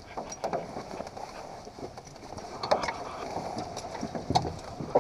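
Open cable-lift cage moving through a rock shaft: a steady hiss with scattered clicks and knocks.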